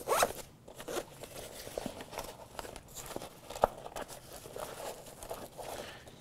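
A nylon pouch and a tourniquet being handled on a wooden table, with fabric rustling and scraping as the tourniquet is pulled free of the pouch's shock-cord retention. There is a bump just after the start and a sharp click about three and a half seconds in.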